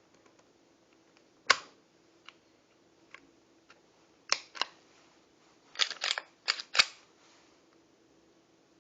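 Sharp metallic clicks and clacks of a Kahr CM9 pistol being handled during disassembly: a single click about a second and a half in, then a quick run of several clicks around the middle.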